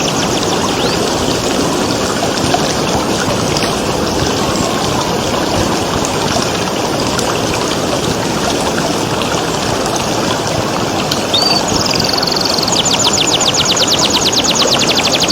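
Steady running water, with a canary breaking in about eleven seconds in: a falling sweep, then a fast trill of rapid repeated high notes.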